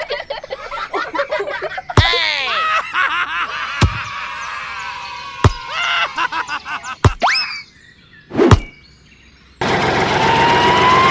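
Cartoon sound effects: a run of springy boings with bouncing, falling pitch sweeps, broken by several sharp hits. Near the end a steady noise cuts in suddenly.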